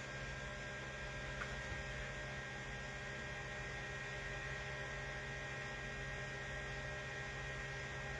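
Steady electrical hum with a faint hiss, holding level throughout, with one faint tick about a second and a half in.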